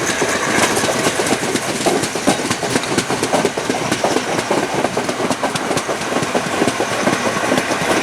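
Carriages of a departing passenger train rolling past at low speed, their wheels clattering over rail joints in a steady run of quick, irregular clicks.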